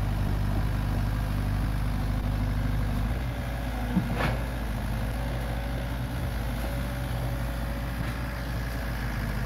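Komatsu PC45 mini excavator's diesel engine running steadily, its note shifting about three seconds in, with a single knock about a second later.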